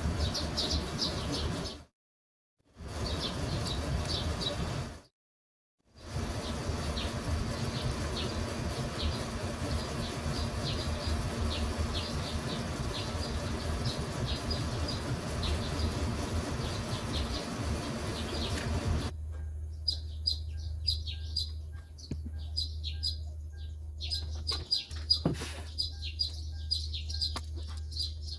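Small birds chirping in quick repeated high notes over a steady low hum and background noise. The sound drops out to silence twice in the first six seconds, and the background noise falls away suddenly about two-thirds of the way through, leaving the chirps clearer.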